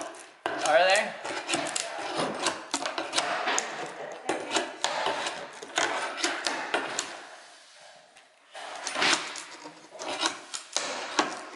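Steel pry bar scraping along a subfloor and prying off wooden carpet tack strip: a quick run of clicks, knocks and wood cracking, with a short squeal about a second in. The noise dies away briefly just before eight seconds, then more prying knocks.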